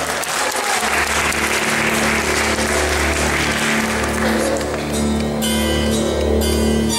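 Audience applause over the performance's backing music, which has a steady low bass; the clapping is strongest through the first four seconds or so and then fades under the music.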